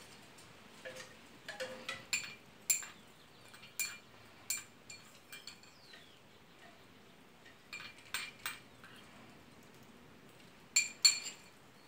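Metal spoon clinking and scraping against a small porcelain bowl as chopped cilantro is spooned out of it. The clinks are sharp and irregular, a few seconds apart, with a quick pair of louder ones near the end.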